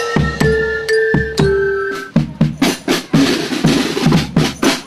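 Marching band playing: a few held notes step down in pitch over the first two seconds, then the drum section carries on alone with a steady beat of snare and bass drum strokes, about three to four a second.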